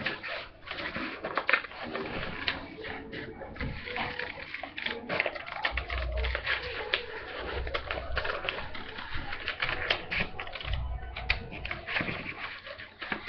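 Scissors snipping through paper and paper rustling and crackling as silhouettes are cut out, in a dense run of irregular clicks. A few dull low thumps, handling bumps on the table, come in the middle and later.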